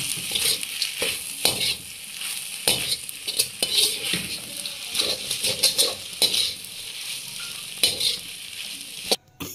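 Perforated metal spatula stirring and scraping through grainy semolina halwa in a metal pot, with a steady gritty hiss and irregular scraping strokes and clicks of metal on metal. The sound cuts off suddenly near the end.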